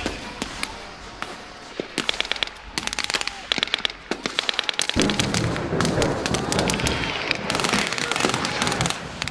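Blank-fire gunfire: rapid strings of shots from automatic weapons and rifles, densest about two to three and a half seconds in and again near the end. A low engine rumble joins about five seconds in.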